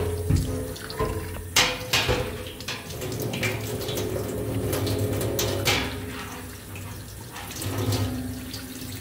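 Cold tap water running into a stainless steel sink and splashing over the black plastic brewer group of a bean-to-cup espresso machine as it is turned under the stream to rinse out coffee residue. There are a few sharp knocks as the unit is handled, the clearest about a second and a half in, at two seconds and near the middle.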